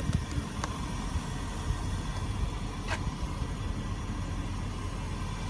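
Steady low rumble and hiss of a car cabin's background noise, with two faint clicks of a door-panel switch being pressed near the start.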